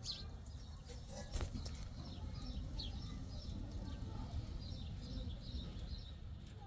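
Birds chirping: many short, high chirps, with a single sharp knock about a second and a half in, over a steady low rumble.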